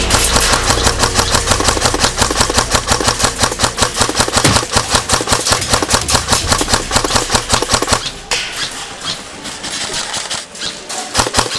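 Airsoft electric gun firing on full-auto: a fast, even stream of sharp mechanical shots that stops about eight seconds in.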